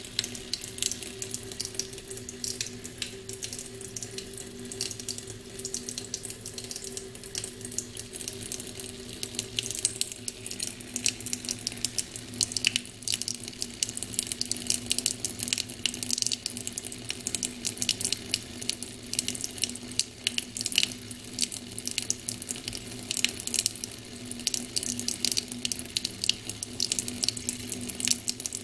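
Kitchen mixer tap running a thin stream into a stainless steel sink: a steady splashing with many small irregular spatters, over a faint low steady hum.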